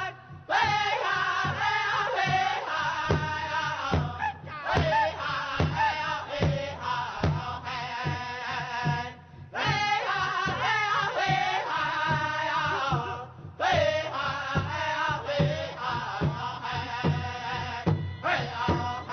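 Native American song: singing in long phrases, pausing about every four to five seconds, over a steady drum beat of about two beats a second.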